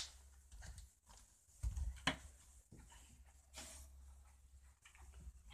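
Faint knocks and rustling from a phone being handled, with a sharp click at the start, over a steady low hum.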